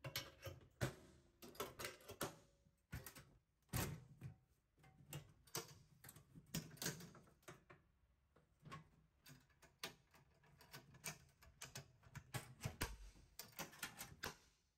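Irregular metal clicks, taps and small clatters of stainless steel kitchen equipment being handled: a lidded tank and its perforated insert tray.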